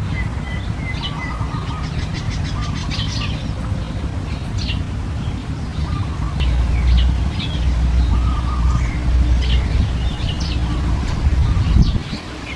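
Small birds chirping and calling in short high notes, with a quick rattling trill about three seconds in, over a steady low rumble.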